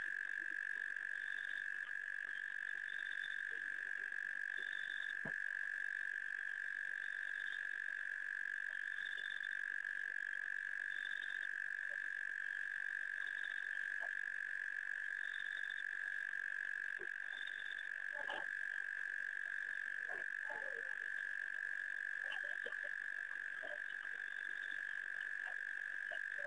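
Night chorus of frogs at a waterhole: a steady, unbroken high trill, with a higher short call repeating about every two seconds over it.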